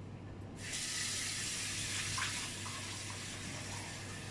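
Kitchen tap running water into a metal pan being rinsed at the sink, a steady splashing hiss that starts about half a second in.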